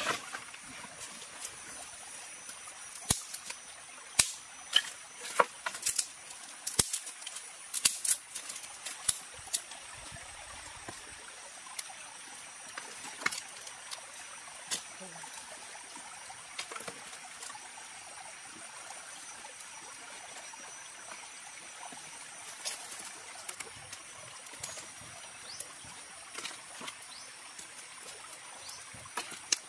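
Dry wooden sticks knocking and clattering as firewood is dropped and arranged, with several sharp knocks in the first eight seconds or so and only occasional clicks after. Under it runs a steady hiss and a thin, steady high whine.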